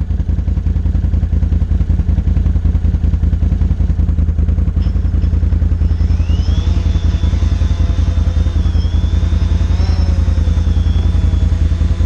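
Can-Am Outlander ATV engine idling steadily. About six seconds in, a DJI Phantom 3 quadcopter's motors spin up for takeoff with a rising high whine that then holds, wavering in pitch.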